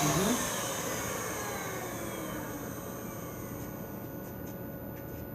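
Handheld electric paint sprayer's motor winding down after being switched off, its whine falling slowly in pitch over the first few seconds and fading to a low steady hiss.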